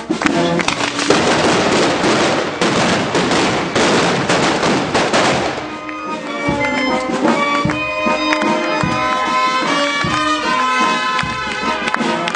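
A string of firecrackers going off in a dense, rapid crackle over festival music, dying away about six seconds in. The music then carries on alone with sustained melodic notes.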